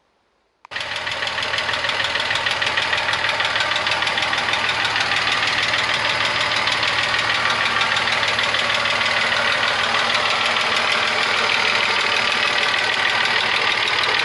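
VW Passat 35i VR6 engine idling with a rapid, even clacking tick over its running; the owner suspects the hydraulic lifters. It cuts in after a brief silence at the start.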